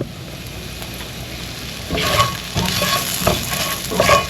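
Chopped shallots sizzling in oil in a frying pan, stirred with a utensil. There is a single knock at the start, then about two seconds in the stirring gets louder, with repeated scraping strokes against the pan.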